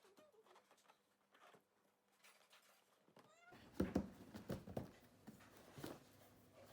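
Handling noise from unpacking a laptop: a few sharp knocks and clicks with some rustling, starting about halfway through. A short rising pitched cry comes just before them.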